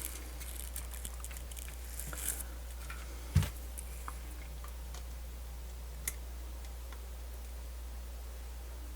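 A few scattered small clicks and taps of tiny parts and tools being handled during reassembly of a portable MiniDisc player, the loudest a knock a bit over three seconds in, over a steady low hum.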